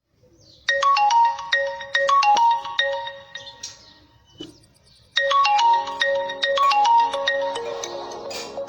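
Vivo V20's stock ringtone playing: a short, bright tune of quick single notes. It stops for about a second and a half, then starts over with lower accompanying notes added underneath.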